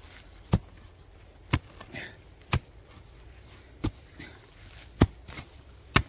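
Shovel blade chopping into soil: five or six sharp strikes, roughly one a second, as a hole is dug.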